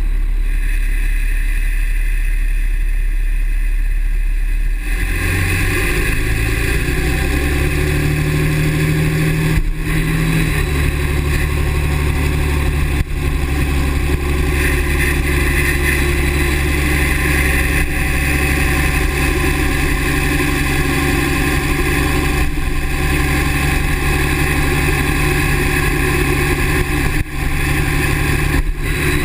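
Dodge Ram's 6.7-litre Cummins inline-six turbodiesel running steadily; its note steps up about five seconds in and holds, with more high-pitched sound coming in about halfway through.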